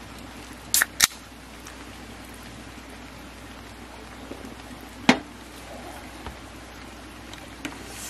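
Aluminium soda can's pull tab cracking open, two sharp snaps close together about a second in. A single louder knock follows about five seconds in.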